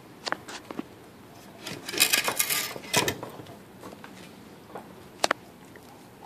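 Blue Bay Shepherd puppy gnawing a raw beef bone: teeth scraping, clicking and crunching on the bone in irregular bursts, thickest about two to three seconds in, with one sharp crack a little after five seconds.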